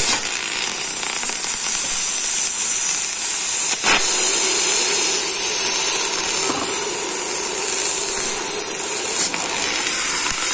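Oxy-fuel gas cutting torch hissing steadily as its flame cuts through a steel bearing plate insert, with one sharp click about four seconds in.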